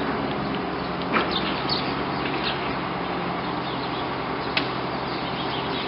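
Sparrows chirping in short, scattered calls, over a steady low hum and rush.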